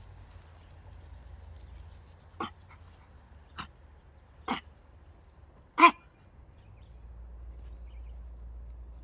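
A dog barking four times in single sharp barks spaced about a second apart, the last bark the loudest.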